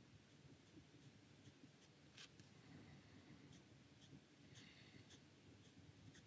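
Faint scratching of a Bic medium ballpoint pen on paper, drawn lightly in many short shading strokes to build up a gray tone.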